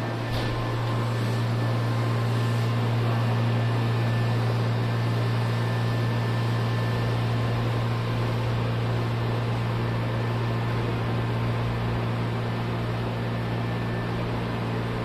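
Steady low hum over an even rushing noise inside a Nankai electric train, unchanging in pitch.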